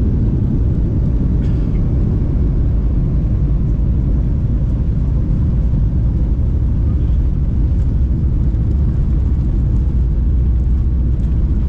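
Boeing 737 jet airliner heard from inside the cabin during takeoff: a loud, steady, low rumble of engines and airflow.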